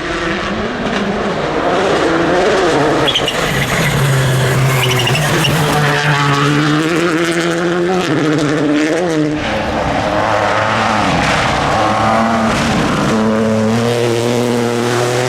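Rally car driven flat out on a gravel stage, its engine revving hard with the pitch climbing and dropping again and again through gear changes and lifts.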